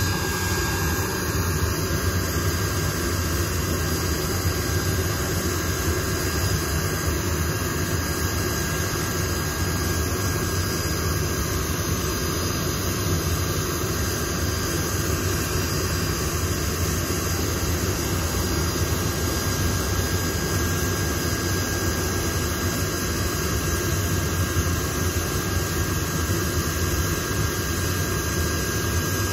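Blackburn Buccaneer's twin Rolls-Royce Spey jet engines running steadily at low power: a constant rumble with a steady high whine over it.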